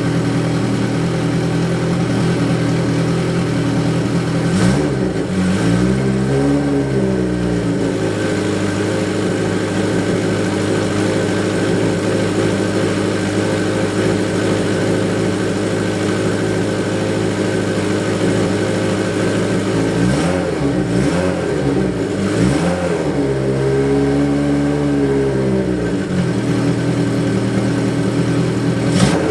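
Motorcycle engine idling steadily, revved up and let back down once about five seconds in and again for several seconds past the twenty-second mark.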